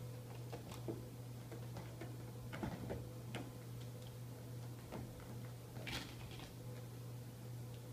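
Kittens' claws snagging and scratching on a cat tree's sisal-rope post and carpeted platform as they climb and wrestle. Scattered irregular clicks and short scrapes, loudest about six seconds in, over a steady low hum.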